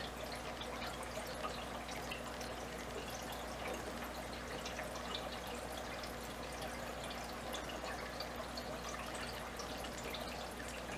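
Aquarium water trickling and dripping steadily, with small scattered ticks over a steady low hum.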